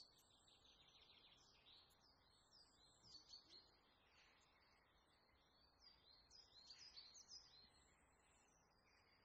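Faint bird chirping: many short, high-pitched chirps and twitters, thickest about three seconds in and again around six to seven seconds in.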